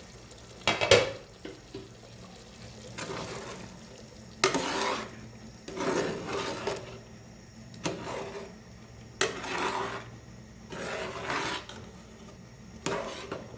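A spoon stirring and scraping against a cooking pot of nihari, in repeated strokes with short pauses between them, and a sharp clatter of metal about a second in.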